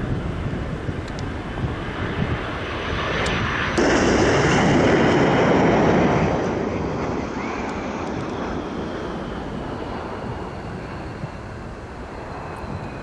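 F-15J fighter jets on landing approach with gear down, their twin turbofan engines giving a steady rushing noise with a high whine. About four seconds in, the sound suddenly grows louder for a couple of seconds, then eases off while the whine falls slowly in pitch.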